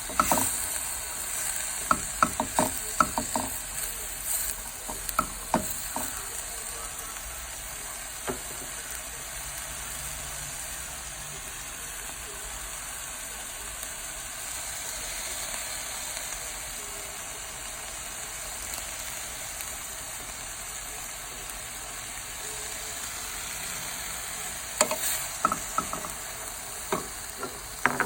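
Vegetables sizzling steadily in a hot pan while being stir-fried. A spatula clacks and scrapes against the pan in quick bursts during the first few seconds and again near the end, with only the sizzle in between.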